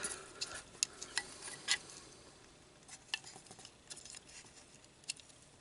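Scattered light clicks and taps of a small circuit board and its wiring being pressed into a plastic remote-control housing. The clicks come more often in the first two seconds, then thin out.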